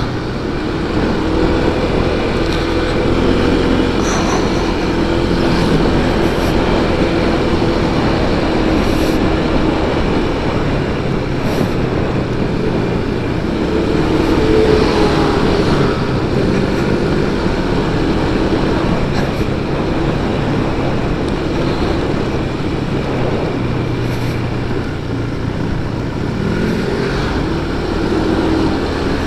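Motorcycle engine running under way on a mountain road, its pitch drifting up and down with the throttle, with wind rushing over the microphone.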